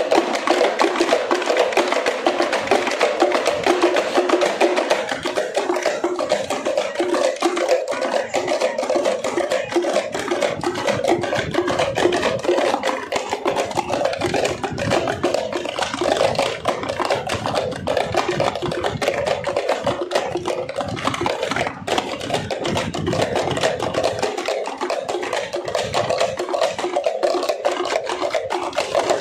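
Several parai (thappu) frame drums beaten with sticks together in a fast, dense, continuous rhythm.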